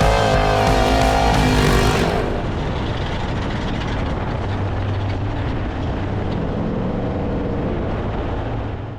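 Rock music ends about two seconds in, giving way to an off-road race truck's engine running steadily, its pitch briefly rising and falling near the end.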